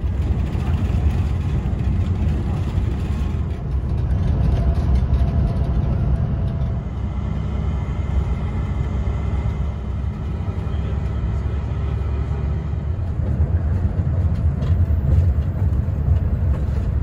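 Steady low rumble of a bus on the move, heard from inside the cabin: engine and road noise.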